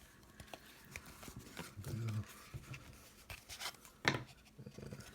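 Trading cards being handled: soft rubbing and sliding of cards against each other, with small taps and one sharp click about four seconds in.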